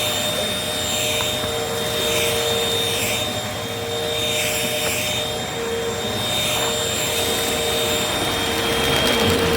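Vacuum cleaners running together, a steady motor whine with a whoosh that swells and fades about once a second.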